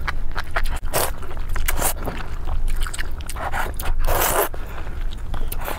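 A person slurping glass noodles in spicy broth, in several short noisy sucks, the longest and loudest about four seconds in, over a steady low hum.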